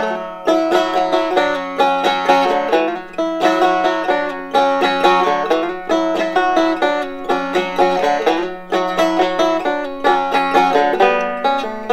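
Banjo music: a quick run of plucked notes, each ringing briefly and dying away.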